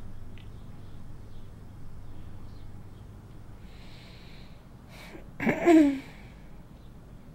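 Quiet room tone with a steady low hum. About five and a half seconds in comes a single loud, short vocal breath sound from a person, dropping in pitch, lasting about half a second.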